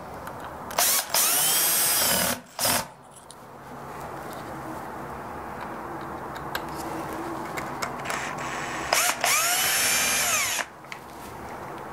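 Cordless drill/driver driving Phillips screws that fasten a burr grinder's gearbox assembly to its chassis. It makes two short whirring runs, one about a second in (with a brief extra blip) and one near the end, each rising in pitch and then sagging.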